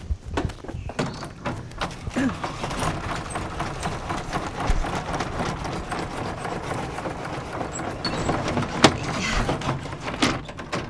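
Horizontal window blinds being drawn up, their slats rattling and clattering, with a few sharper knocks and one loud knock about nine seconds in.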